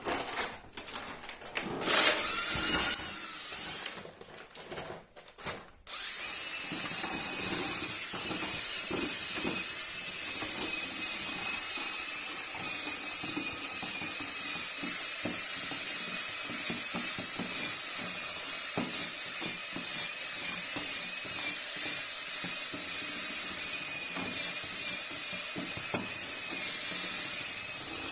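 Electric paddle mixer stirring drywall joint filler in a bucket to knock out lumps: a couple of short starts, then from about six seconds in a steady motor run with a constant high whine.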